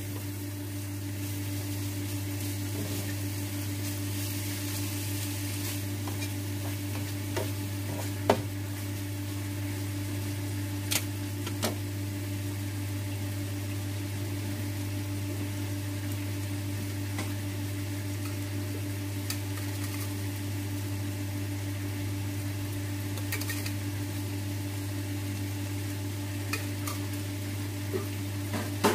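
Sliced pork sizzling steadily in a non-stick frying pan over a gas flame, with a few scattered sharp knocks and clicks of a spatula against the pan. A steady low hum runs underneath.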